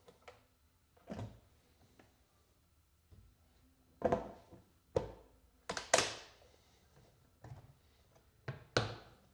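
A series of irregular thunks and knocks from objects being handled, loudest about six seconds in.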